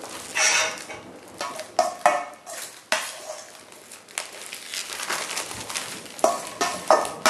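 Metal spoon scraping and clinking against a stainless steel bowl as sticky minced chicken is scooped out, in an irregular run of scrapes and clinks with a cluster near the end.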